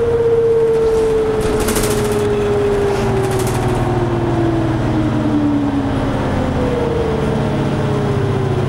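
Inside a 2004 New Flyer DE60LF hybrid articulated bus: the GM-Allison EP50 hybrid drive's electric whine falls slowly and steadily in pitch as the bus slows, and a second falling whine starts near the end. Under it runs the steady low hum of the Caterpillar C-9 diesel, with a couple of brief hisses in the first few seconds.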